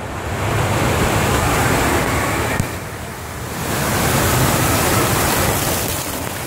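Water rushing down a plastic water-slide flume as a rider slides through it, a steady rushing hiss that swells twice, with splashing and air noise on the handheld phone's microphone.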